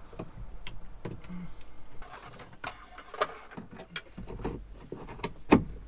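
Screws being hand-tightened into a radio mounting bracket: irregular clicks, taps and scrapes of the tool and bracket, with one sharper knock about five and a half seconds in.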